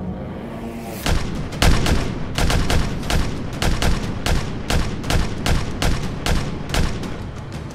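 Paintball markers firing a rapid string of sharp shots, about four a second, starting about a second in.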